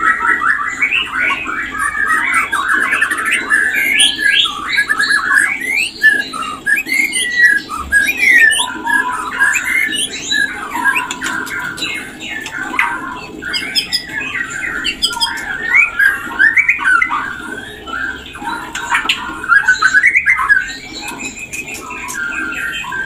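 White-rumped shama singing and calling: a fast, unbroken stream of varied whistled notes with quick rising and falling sweeps, as in a shama's mating calls.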